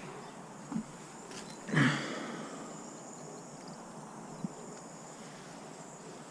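Steady outdoor background hiss with one sharp thump about two seconds in, and a couple of faint clicks.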